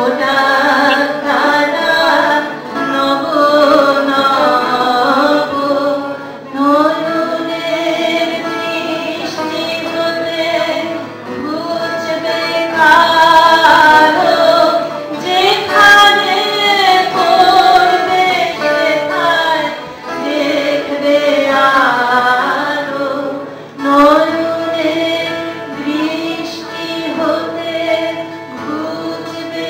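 A woman singing a slow song solo into a microphone, her voice holding long notes that bend and swell, with a steady low tone beneath it.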